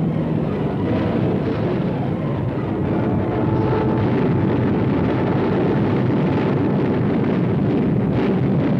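Loud, steady low rumble of battle sound: aircraft engines and anti-aircraft fire running together, with no single shot standing out.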